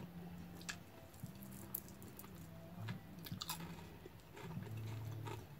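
Close-up chewing and mouth sounds of someone eating fried fish by hand, with several sharp crunches spread through. A low hum sits underneath.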